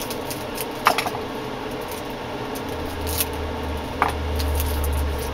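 A packet of sour sweets being handled and opened: light rustling, with a sharp click about a second in and another about four seconds in. A low steady hum comes in about three seconds in.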